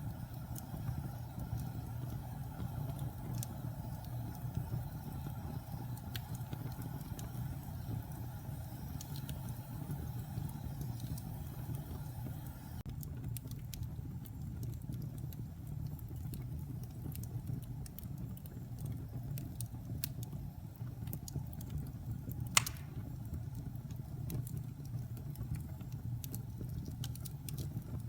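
Wood fire burning in a fireplace: a steady low rumble of the flames with sparse light crackles and one louder pop about three-quarters of the way through.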